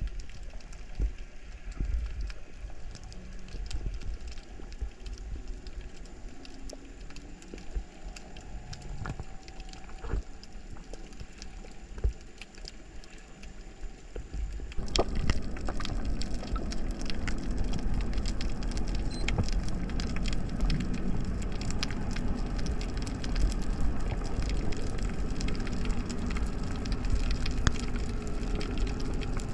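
Underwater ambience: a dense crackle of many tiny clicks over a low rumble of moving water, growing louder and denser about halfway through.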